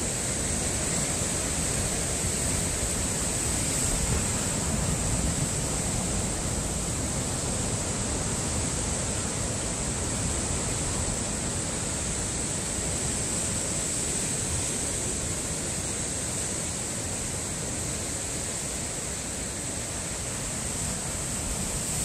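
Heavy surf breaking over coastal rocks: a continuous, dense rush of crashing waves and churning white water, swelling slightly about four seconds in, with a steady high hiss over it.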